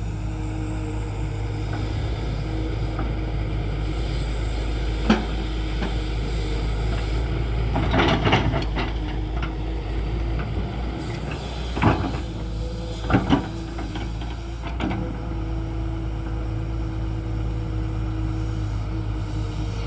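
Tata Hitachi 210 excavator's diesel engine running steadily under load, with a handful of sharp knocks and clatters, the busiest burst about eight seconds in and a quick pair around thirteen seconds, while it loads a tipper.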